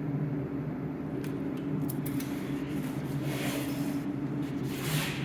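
Steady low hum with a few sharp clicks and then two short scraping hisses, the sound of something being handled close to the microphone.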